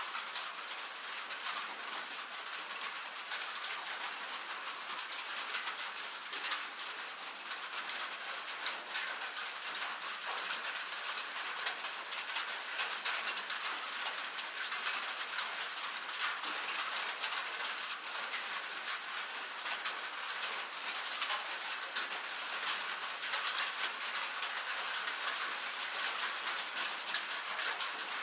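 Steady rain falling on a metal roof: a dense, even patter of countless small drop hits.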